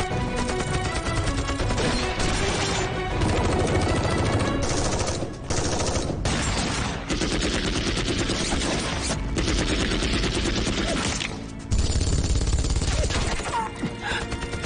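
Dense, rapid gunfire of rifles and machine guns in sustained bursts, with a few brief pauses, over background music.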